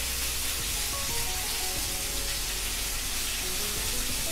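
Small potatoes frying in melted butter in a pan, a steady sizzle, with soft background music.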